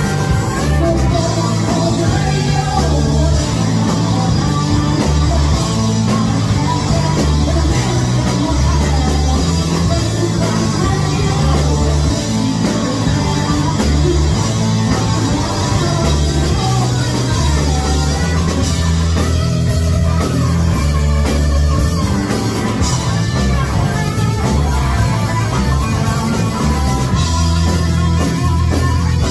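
Live amplified rock band playing: electric guitars, bass guitar and a drum kit, with a woman singing lead.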